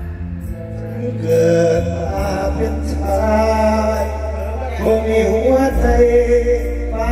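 Mor lam stage band music: a held, wavering melody line over a heavy, steady bass.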